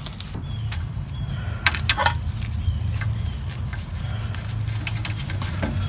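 Metal clinks and knocks of a front wheel hub assembly being handled and slid onto the axle shaft's splines, a few sharp ones about two seconds in, over a steady low hum.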